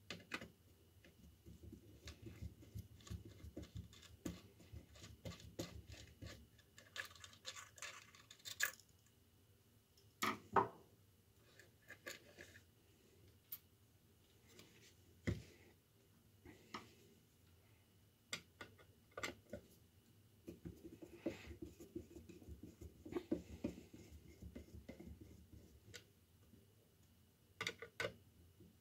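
Hand screwdriver backing small screws out of a brass clasp and hinge on a thin wooden box: faint scraping and creaking as the screws turn, broken by small clicks and a few sharper knocks of metal on wood.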